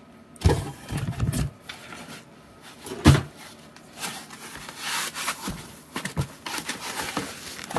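Cardboard box and foam packing inserts being handled while a boxed CPU cooler is lifted out: rubbing and scraping with several dull knocks, the loudest about three seconds in.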